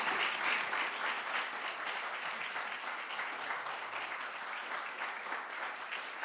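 Audience applauding, a dense round of clapping that eases off slightly toward the end.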